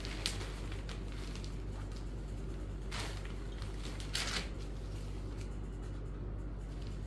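Cotton saree fabric rustling and swishing as it is flipped open and spread out, in three short swishes: near the start, about three seconds in, and just after four seconds. A steady low hum runs underneath.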